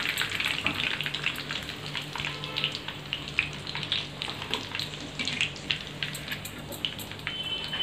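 Breaded chicken nuggets deep-frying in hot oil: a steady, dense crackling sizzle of bubbling oil.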